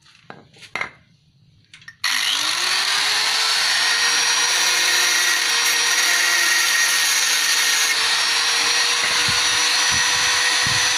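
A few handling clicks, then an electric angle grinder switches on about two seconds in, spins up with a quick rising whine and runs steadily at full speed. It is being used to grind off the rivet heads of a motorcycle magneto rotor.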